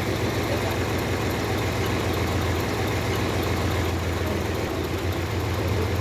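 Farm tractor's diesel engine idling steadily.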